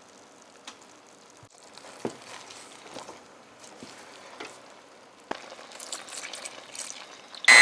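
Faint crackling sizzle of food cooking, with scattered small clicks and taps.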